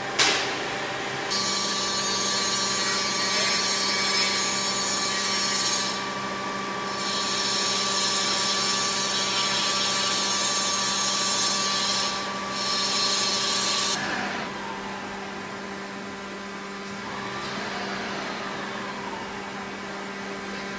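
Steady industrial machinery hum with several held tones. A sharp click comes right at the start, and a high, hissing power-tool whine joins about a second in, dips out briefly twice and stops around 14 s.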